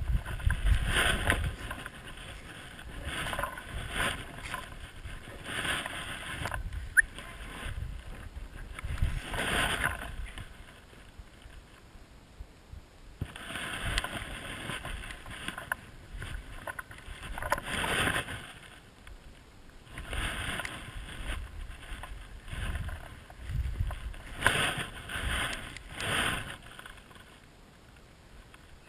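Footsteps crunching and swishing through dry corn stubble and dead grass, a crunch every second or two, with wind rumbling on the microphone at the start.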